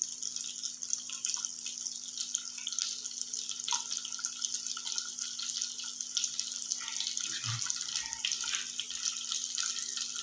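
Sliced onions sizzling in hot oil in a frying pan, over a tempering of cumin, mustard seeds and curry leaves: a steady high hiss with fine crackles.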